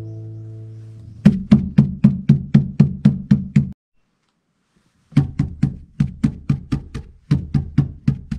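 Sheet-metal floor recess in a Suzuki Every van's cargo area, lined only with aluminium insulation sheet, tapped about ten times at about four taps a second, each knock ringing briefly. After a pause of about a second and a half, a second recess lined with sound-deadening mat under the aluminium sheet is tapped about a dozen times in two short runs, to compare the damping.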